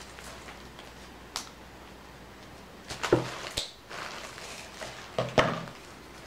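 Scissors snipping and handling plastic packaging on a new headset: a few short sharp clicks and rustles, the loudest clusters about three and five seconds in.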